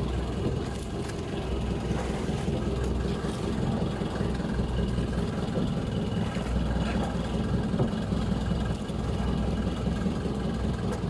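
Outrigger fishing boat's engine running steadily, a continuous low drone.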